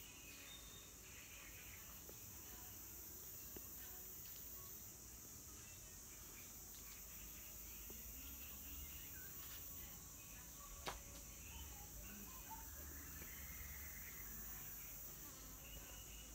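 Faint outdoor ambience: a steady high-pitched insect chorus, with scattered faint short chirps and one sharp click about eleven seconds in.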